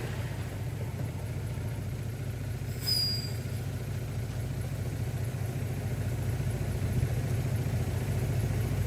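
Diesel engine of heavy earthmoving machinery running steadily with a low rumble, with one brief high-pitched squeal about three seconds in.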